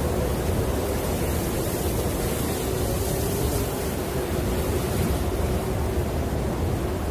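Snowstorm wind heard from inside a hut: a steady, dull low rush with a faint wavering moan running through it.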